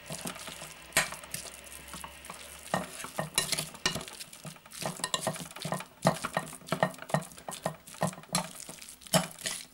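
A spoon stirring raw ground beef and onion chunks in a glass bowl, with irregular clicks and scrapes of the spoon against the glass.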